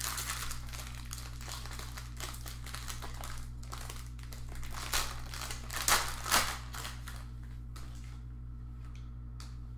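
Crinkling and rustling of plastic and paper as trading cards are handled and sorted, with a few sharper snaps about five, six and six and a half seconds in.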